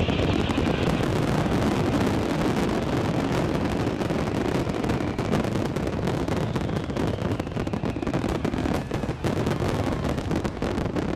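Finale barrage of aerial firework shells bursting over a lake, so many bangs overlapping that they run together into one continuous rumble.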